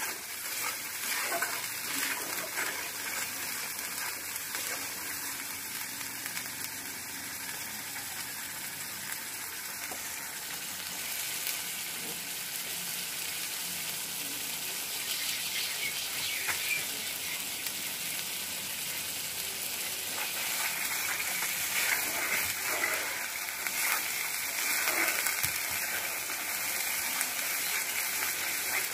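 Mustard, poppy seed and garlic paste sizzling as it fries in oil in a pan, with a spoon scraping the pan now and then as it is stirred.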